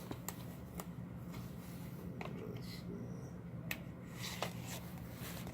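Light clicks and taps of a Blu-ray case and its slipcover being handled, a handful of separate knocks over a steady low hum.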